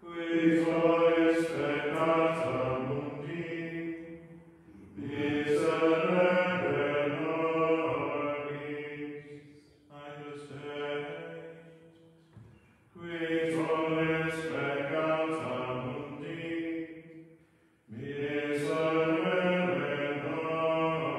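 Liturgical plainchant sung by a group of voices, in phrases of a few seconds separated by short breath pauses.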